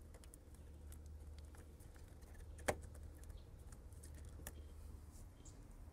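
Faint clicks and rubbing of a ribbed rubber intake air duct and its hose clamp being pushed onto the throttle body by hand, with one sharper click a little before halfway, over a low steady hum.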